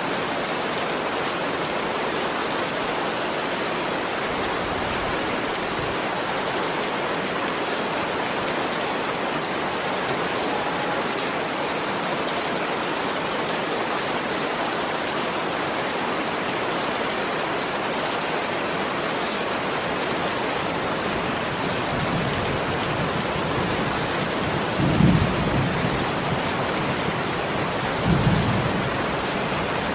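Steady heavy rain pouring down, with two short low rumbles of thunder near the end.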